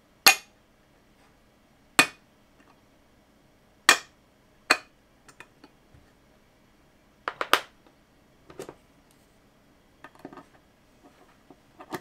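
Sharp metallic clicks, about eight at irregular intervals with a quick cluster midway, as the head actuator arm of a Seagate Barracuda hard drive is swung back and forth by hand.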